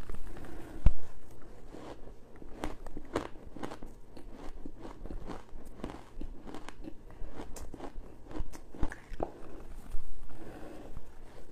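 Close-miked biting and chewing of spoonfuls of squeaky freezer frost topped with buckwheat: a quick, irregular run of sharp crunches.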